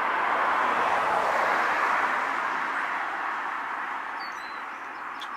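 Steady rushing noise of passing traffic, loudest at the start and slowly fading away. A brief faint high chirp comes about four seconds in.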